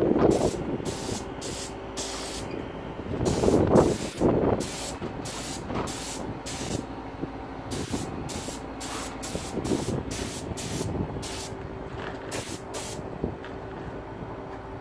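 Gravity-feed spray gun spraying paint in short trigger pulls: quick hisses, about two or three a second, in runs of several with brief pauses between. Two louder low rumbles come near the start and about four seconds in.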